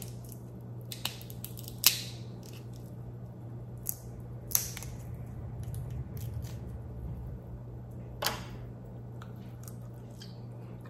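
Cooked Dungeness crab shell snapping and clicking as the meat is picked out of the legs by hand: a few scattered sharp cracks, the loudest about eight seconds in, over a steady low hum.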